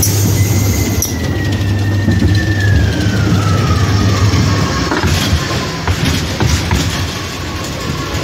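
Ghost train ride car running along its track: a steady low hum, a long falling whine through the first half, then a scatter of clicks and clacks in the second half.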